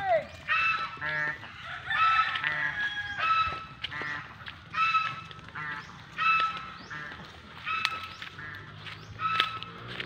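Domestic fowl calling: a run of about ten short, honking calls, roughly one a second.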